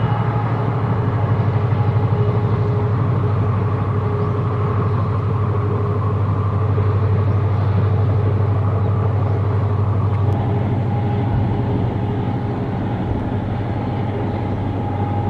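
Diesel locomotive engine running with a steady low drone as it hauls a long passenger train. The drone eases slightly about ten seconds in.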